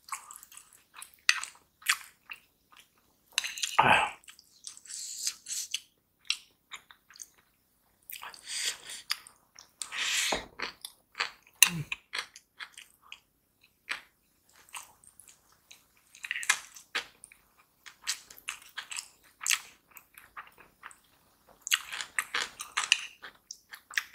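Close-miked mukbang chewing of rice and stir-fried vegetables, with a run of wet mouth clicks and smacks and a few louder thumps. A metal spoon scrapes and clinks against the ceramic bowl as more rice is scooped.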